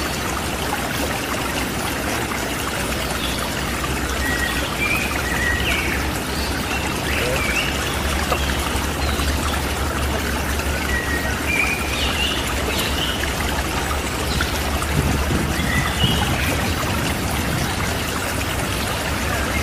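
Steady rush of running water, with small birds chirping now and then over it.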